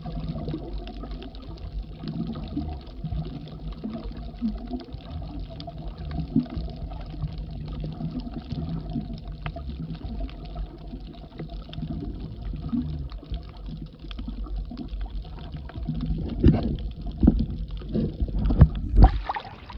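Muffled underwater noise picked up by a camera held below the surface: a steady low rumble with faint crackle and water movement. Near the end come several loud thumps and splashes.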